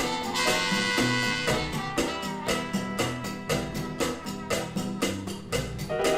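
Instrumental band music played from a 1958 stereo vinyl LP: sustained melody notes over a steady percussion beat.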